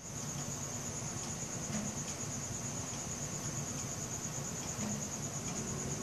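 Crickets trilling: one continuous high-pitched trill made of rapid, even pulses, over a low steady hum.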